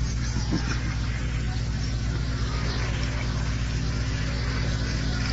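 Steady low electrical hum with hiss from an old live public-address recording, with a faint murmur of listeners underneath.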